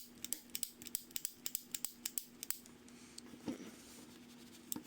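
Gate of a freshly lubricated Petzl locking carabiner being worked open and shut, making a quick run of small metallic clicks for about two and a half seconds, then a few scattered clicks. The action is working the Tri-Flow lubricant through the hinge and flushing out black grime.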